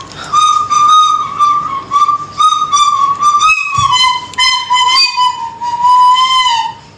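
Pet cockatiel whistling loudly close to the microphone: a long string of linked notes held around one pitch, sliding down near the end before it stops.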